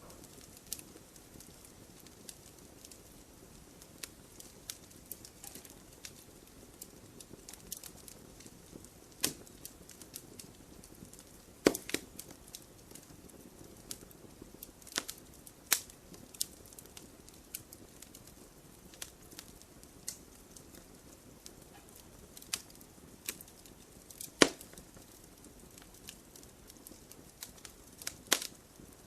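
Campfire crackling: irregular sharp pops and snaps of burning wood over a soft low hiss, with a few much louder pops scattered through.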